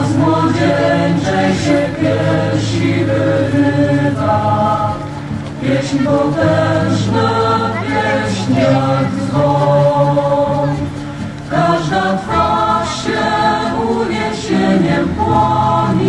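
Choral music: voices singing long held chords that change every few seconds over a low sustained note.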